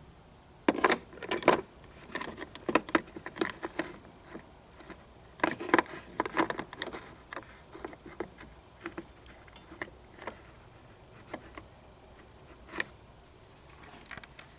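Irregular clinks and rattles of small metal objects being handled: dense clusters for the first several seconds, then sparse single clicks.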